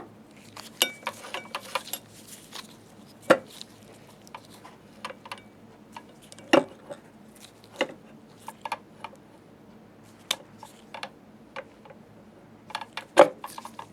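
Irregular small metallic clicks and clinks, with a few sharper knocks, as the spindle shaft of a Topcon SL-D slit lamp base is raised and lined up with its spring washers.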